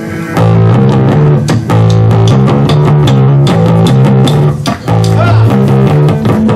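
Live rock band playing an instrumental passage: electric guitar and bass guitar over a steady beat.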